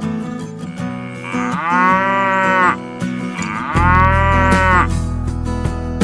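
A cow mooing twice, each moo about a second and a half long, over background music.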